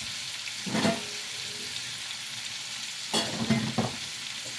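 Pan of chicken, garlic and tomatoes sizzling steadily on the stove, with a utensil knocking and scraping in the pan about a second in and again a few times around three seconds in.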